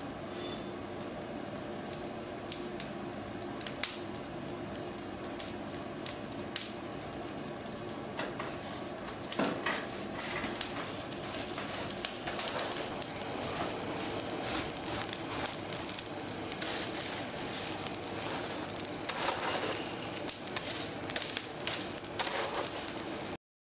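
Coal forge fire burning with a steady rush and scattered crackles and pops, with tongs clinking and shifting in the coals now and then. The sound cuts out briefly near the end.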